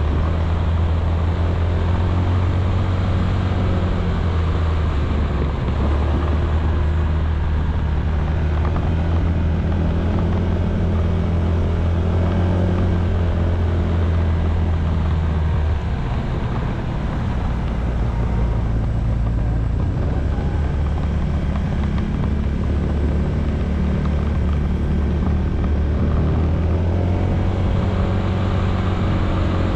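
Honda ADV160 scooter's single-cylinder engine running at a steady cruise under a constant rush of wind and road noise. The engine note drops away about halfway through and comes back a couple of seconds before the end.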